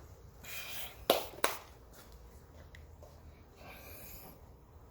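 Hands handling small parts: brief rustling, then two sharp clicks about a second in, under half a second apart, and another short rustle near the end.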